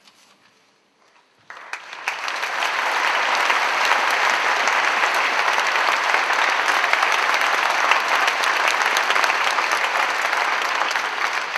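A large audience applauding, starting suddenly about a second and a half in and going on steadily as sustained clapping.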